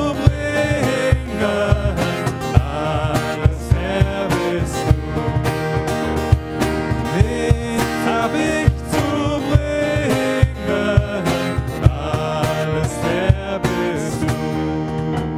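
A small worship band playing a German hymn: two male voices singing over strummed acoustic guitar, grand piano chords and a steady cajón beat. The song is drawing to its close near the end.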